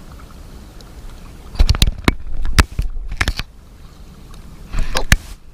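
A steady low rumble of wind on the microphone, broken by four short clusters of sharp knocks and clicks, the first coming about one and a half seconds in and the last near the end.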